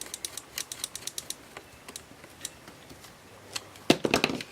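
Scattered light clicks and taps of small hand work on the charger's wiring and terminals, with a louder run of clicks and rattling about four seconds in.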